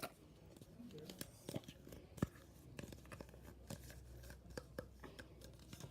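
Faint handling sounds: scattered small clicks and crinkles, with one sharper click a little past two seconds in.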